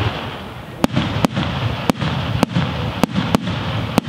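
Aerial firework shells bursting overhead: about seven sharp reports in four seconds, unevenly spaced, over a steady hissing noise between them.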